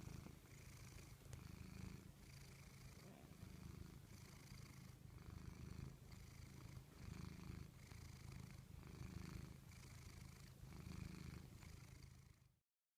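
A cat purring faintly and steadily, swelling and easing with each breath about once a second. The sound cuts off abruptly near the end.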